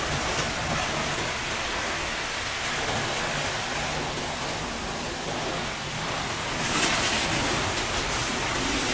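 Pressure-washer jet spraying against a truck's steel side panels and wheels, a steady hiss of spray and splashing, runoff water pattering onto the floor. The spray grows louder and hissier about seven seconds in.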